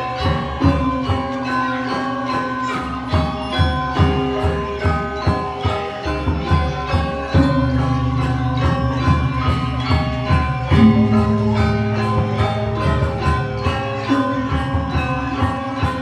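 Balinese gamelan orchestra playing: bronze metallophones struck in quick, even strokes over deep, ringing gong tones that shift pitch every few seconds.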